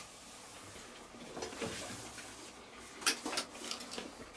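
A wooden crate being picked up and handled, with a few light knocks and clicks about three seconds in.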